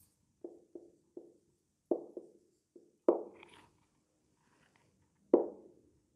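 Marker knocking against a whiteboard while writing: a string of about eight short, hollow knocks, the two loudest about three seconds in and near the end, with faint marker scratches between.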